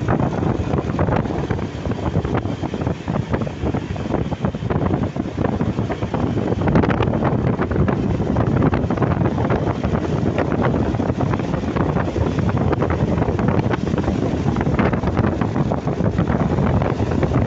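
Wind buffeting the microphone hard from a moving vehicle, over steady road and engine noise; no horn tones stand out.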